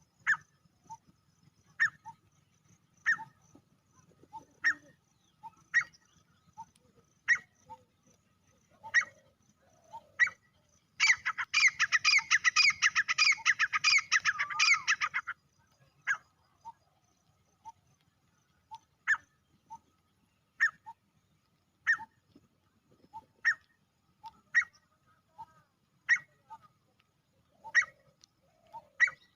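Male grey francolin calling: short, sharp single notes about every one and a half seconds, broken about eleven seconds in by a loud, fast run of harsh repeated calls lasting some four seconds.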